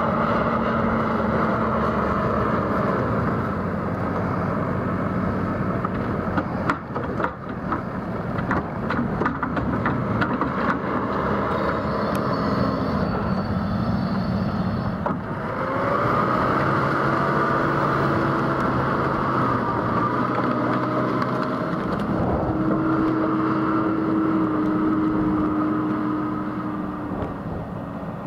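JCB telescopic wheel loader's diesel engine working while loading muck into a spreader, with a run of knocks and clatter about a quarter of the way in. Just past halfway the engine revs up and then holds steady at high revs.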